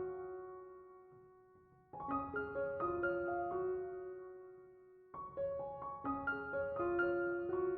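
Background piano music: short phrases of notes falling in pitch, each left to ring and fade before the next begins.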